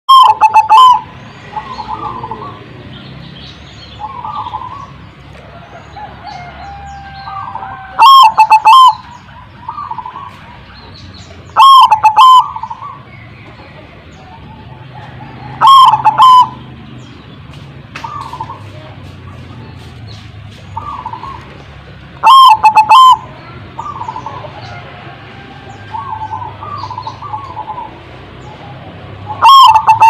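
Zebra doves (perkutut) cooing: six loud phrases of rapid staccato coos, each about a second long and spaced several seconds apart, with softer single coos in between.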